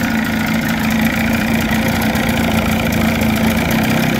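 1979 Johnson 35 hp two-stroke twin outboard running steadily at idle in a water test barrel, shifted into reverse gear.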